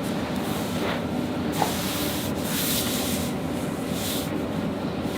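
Hands rubbing and brushing over skin and clothing in several short swishes while the chiropractor works on the patient's neck and upper back, over a steady low room hum.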